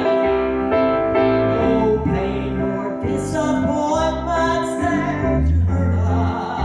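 Gospel song sung by a female voice over piano or keyboard accompaniment, with long held notes.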